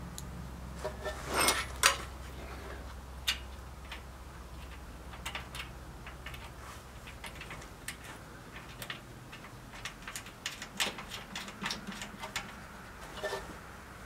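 Irregular small metallic clicks and clinks of nuts and lock washers being handled and fitted by hand onto the engine's mounting bolts. The clicks are thickest in the second half.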